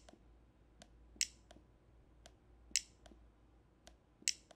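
Sharp clicks roughly every second and a half as code blocks are added and snapped together in a block-coding editor, each loud click followed by fainter ones.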